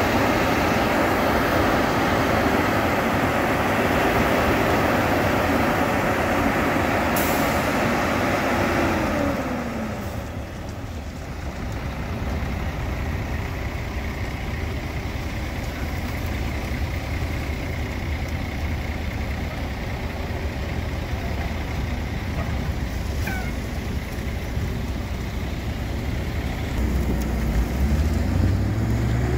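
Heavy diesel engines of a concrete mixer truck and a Gomaco slip-form paver running. The engine note falls and drops in level about nine seconds in, and near the end a truck engine revs up, rising in pitch.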